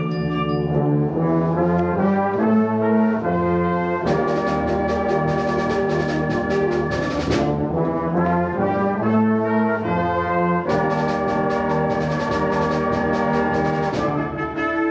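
School concert band playing, with full brass chords over woodwinds that change every second or so. A run of quick percussion strokes comes in about four seconds in and again near eleven seconds.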